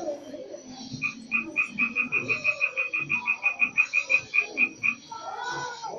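An animal's rapid trilling call, about six short high pulses a second, starting about a second in and stopping near the five-second mark.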